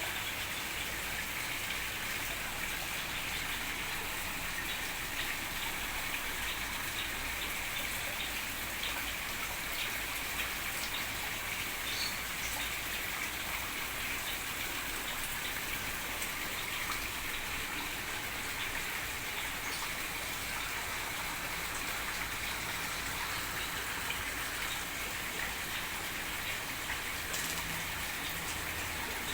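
Steady hiss of falling or running water, with many small ticks scattered through it.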